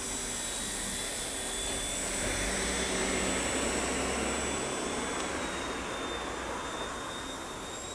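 Small toy RC helicopter's motor and rotor whirring in flight, a steady rush with a thin high whine. It grows louder in the middle and fades a little towards the end, as if the helicopter passes closer.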